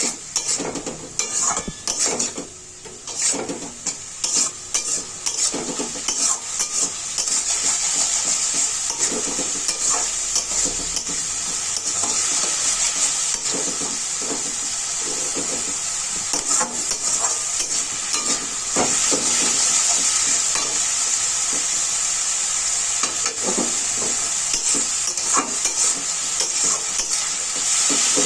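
Chopped onions and tomato frying in oil in a pan, sizzling steadily, while a spatula stirs and scrapes against the pan in repeated short strokes. The sizzle gets louder after the first several seconds.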